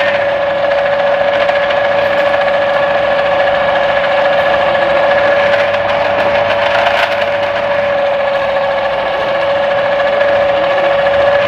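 Panda Scale electric noodle machine running with a steady hum, its motor turning the dough-sheeting rollers at setting 1 while noodle dough is fed through for the first pass.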